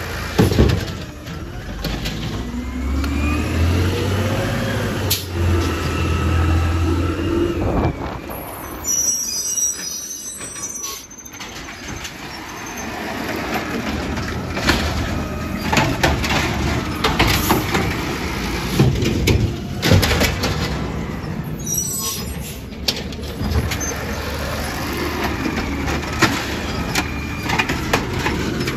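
Garbage truck at work at the curb: its engine revs up and down, with knocks and clatter throughout and a couple of short air-brake hisses, about nine and twenty-two seconds in.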